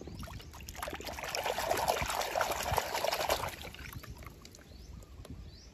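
A hand sloshing through muddy water in a plastic tub, splashing and trickling, loudest in the middle and then fading as a wet die-cast toy truck is lifted out dripping.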